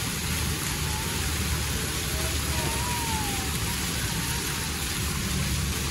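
Steady splashing hiss of small ornamental fountain jets falling into their pool.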